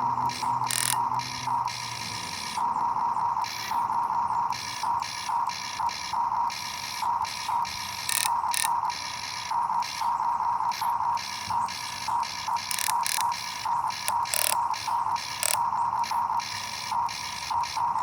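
Electric gear motors of a Huina RC excavator whining in short, irregular bursts as the arm, bucket and tracks are worked, with light gear clicks between them.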